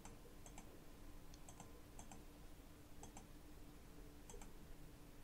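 Faint computer mouse clicks, each a quick press-and-release pair, several times over a low steady hum: near-silent room tone otherwise.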